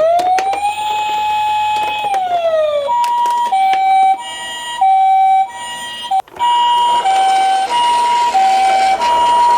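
Electronic ambulance siren from a toy minicar. A wailing tone rises, holds and falls, then about three seconds in it changes to a two-tone hi-lo pattern, switching pitch roughly every two-thirds of a second, with a brief cutout about six seconds in.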